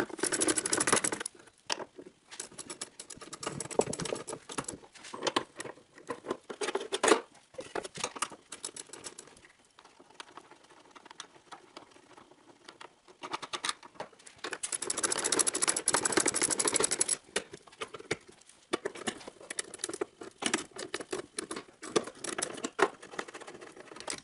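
Ratchet wrench clicking as the 10 mm bolts of the wiper motor and transmission assembly are backed out, sped up, with clinks and rattles of metal parts. Two longer spells of rapid ratcheting stand out, one at the start and one about fifteen seconds in.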